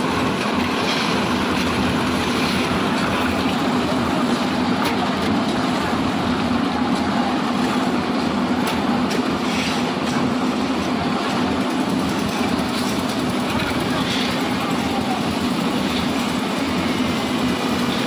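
Diesel-powered lift concrete mixer running, a loud, steady engine drone with a few faint knocks.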